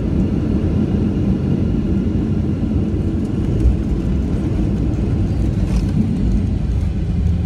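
Cabin noise of a Boeing 737-700 rolling along the runway after touchdown: a loud, steady low rumble of its CFM56 engines and wheels, heard from a window seat beside the wing.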